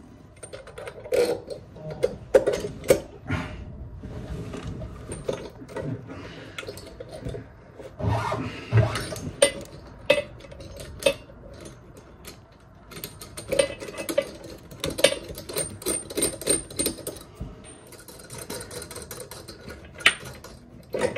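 Hands working under a ceramic basin: braided stainless flexi hoses rubbing and knocking against the basin, and metal washers and nuts clicking as they are fitted onto a tap's fixing bolts. Irregular scrapes and clicks, with a busier run of small clicks about two-thirds of the way through.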